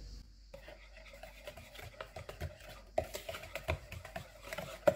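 Wire balloon whisk beating a thick yogurt, cream and powdered-sugar mixture in a mixing bowl: a quick, irregular run of clicks and taps as the wires hit the bowl, starting about half a second in, with a few louder knocks.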